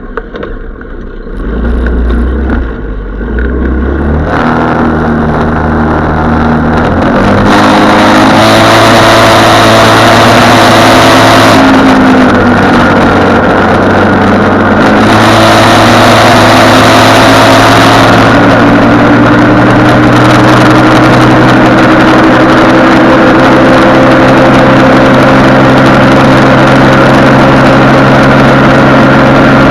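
Small Dingo SF150L snowmobile's engine running, growing louder in steps over the first several seconds as it revs up, its pitch dipping and rising. It then settles into a loud, steady drone whose pitch slowly climbs.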